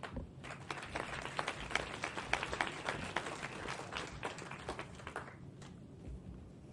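Audience applause, a scatter of many claps that dies away about five seconds in.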